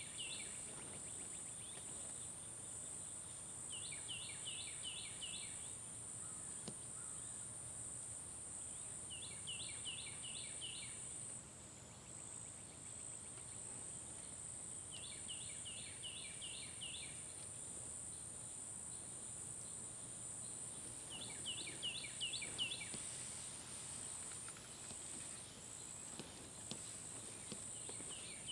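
A steady high insect trill, like crickets, with a songbird repeating a short phrase of five or six quick notes about every five to six seconds.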